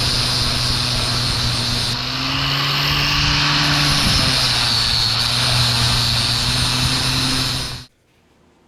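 A machine runs steadily: a loud rushing hiss over a low motor hum, with the hum's pitch lifting slightly for a moment in the middle. It cuts off abruptly near the end.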